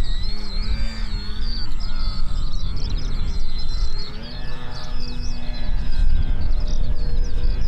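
Electric RC model airplane's motor and propeller whining in flight, the pitch wavering up and down, then holding steadier about four seconds in. Birds chirp over it.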